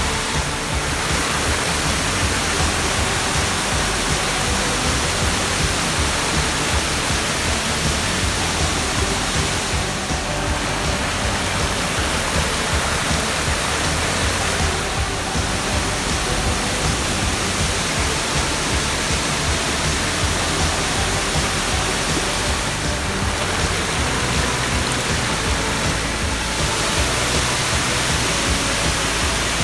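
Steady rush of falling water from the Peñaladros waterfall, with background music over it.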